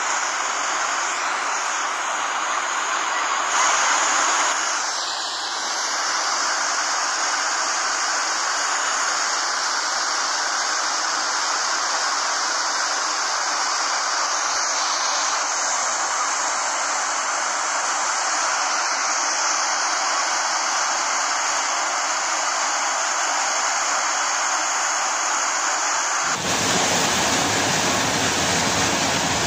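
Steady rushing of falling water from a waterfall. Near the end it changes to a fuller, deeper rush of fast water running down a river channel.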